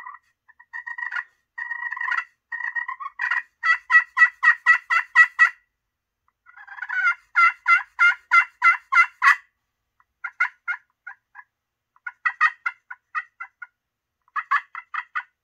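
Quaker Boy Magic Touch slate turkey call, its acrylic striker freshly scuffed with Scotch-Brite, played on the slate. It gives a few seconds of soft purring notes, then two runs of about eight hen yelps each, then short, sharp clucks in small groups.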